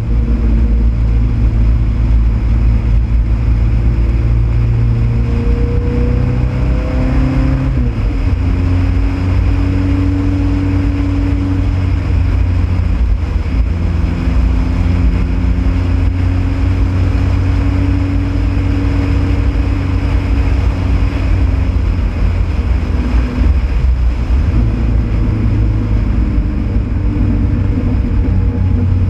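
Ford Pinto race car engine running hard on track, heard from the onboard camera. Its pitch climbs, then drops sharply about eight seconds in as it shifts up, then climbs slowly along the straight. The note changes again a few seconds before the end.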